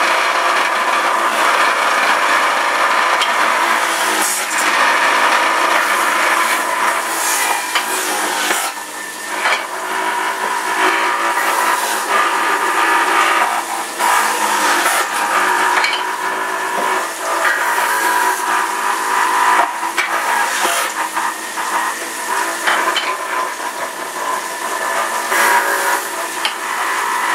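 Electric centrifugal juicer running, its motor whining steadily as vegetables are pushed down the feed chute, with a few short, louder grinding rasps as pieces hit the cutter.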